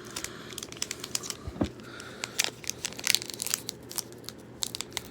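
Foil wrapper of a Pokémon booster pack crinkling and crackling as it is handled and pulled open, in many irregular sharp crackles.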